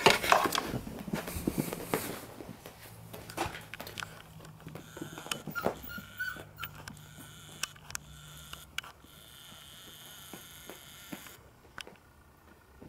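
Beagle puppies playing on a carpeted floor: scattered small clicks, taps and scuffles, with a brief soft puppy whine about five seconds in.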